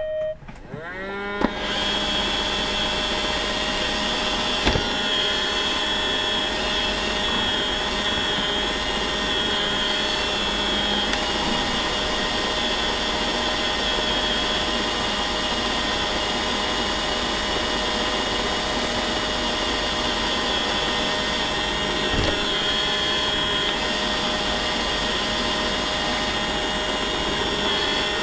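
iRobot Roomba robot vacuum heard from a camera riding on it: its motors spin up with rising whines in the first second or so, then its vacuum fan and brushes keep up a steady whir with a high whine. Two short knocks break in, about five seconds in and again near the end.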